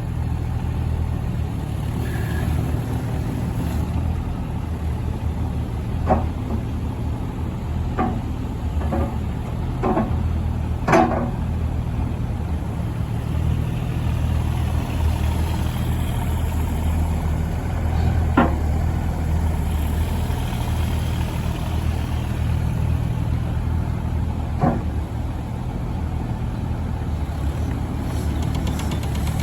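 The diesel engine of a 2020 JCB 8026 CTS mini excavator running steadily, with a low hum. About seven short, sharp knocks stand out, five of them close together in the first half and two more later on.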